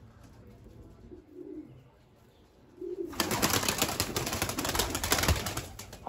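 Pigeons cooing faintly twice, then from about three seconds in a loud rushing, crackling noise for nearly three seconds that drowns them out.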